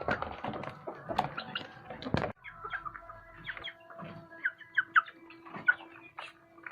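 Village chickens: short high chirps and peeps mixed with clicking and scratching. The busy clicking stops abruptly about two seconds in, leaving scattered chirps over a steady hum.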